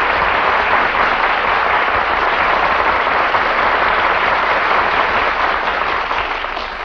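Studio audience applauding, a dense steady patter of many hands that tapers off slightly near the end, heard on an old radio broadcast recording.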